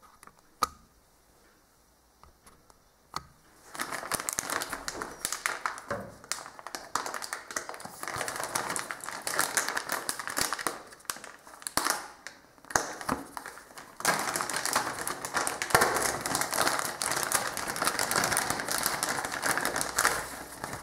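Clear plastic packaging crinkling and crackling as it is handled and opened. The first few seconds are near quiet apart from a couple of clicks, then the crinkling runs on continuously and grows louder about two-thirds of the way in.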